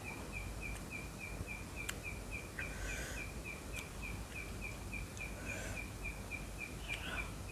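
Outdoor background with a steady run of short, high chirps repeating about five times a second, and a few sharp clicks.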